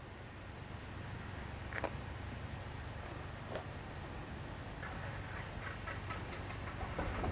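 Insects chirping steadily in a high, evenly pulsing drone over a faint low rumble.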